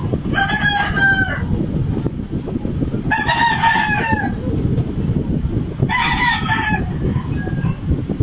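A bird calls three times, a few seconds apart, each call about a second long and pitched, falling slightly at its end, over a steady low rumble.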